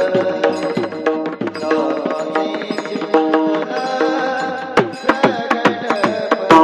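Instrumental devotional kirtan music with no voice: a hand-drum rhythm of quick strokes over steadily held melodic notes.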